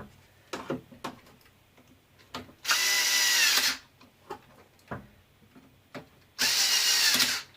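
Cordless power screwdriver running in two bursts of about a second each, driving screws into nylon parts, with small clicks of handling in between. Its torque is set to the lowest setting so the screws won't shear.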